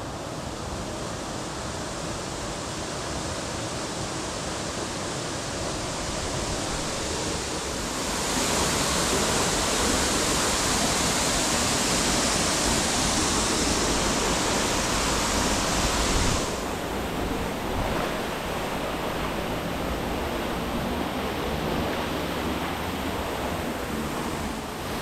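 Waterfall pouring into a rock pool: a steady rush of falling water. It grows louder and brighter about a third of the way in, then drops back abruptly just past the middle.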